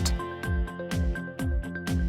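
Background music with a steady beat: a kick drum about twice a second under held tones.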